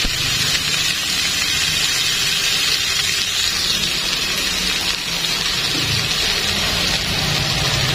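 Chicken pieces sizzling in a ridged grill pan: a steady, dense hiss of juices and fat frying on the hot pan.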